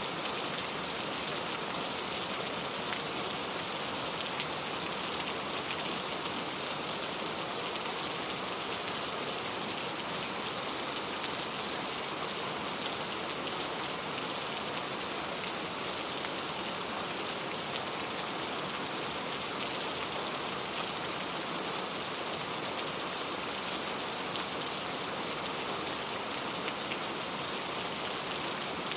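Steady rain falling: a dense, even hiss of drops with faint individual ticks, unchanging throughout.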